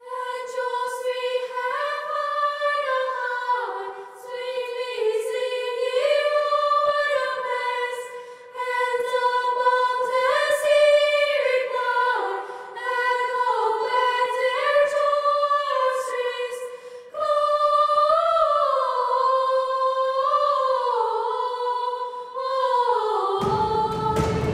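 High voices singing a slow, gliding melody unaccompanied, in a single line with nothing beneath it. About a second before the end, a sudden loud rushing noise takes over.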